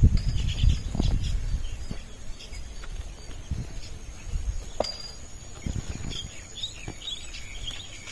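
Birds chirping outdoors over low rumbling and scattered knocks; the rumble is loudest in the first second or two.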